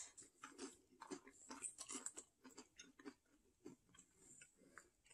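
Faint chewing of slices of Norwegian brown cheese, soft irregular mouth clicks with the mouth closed.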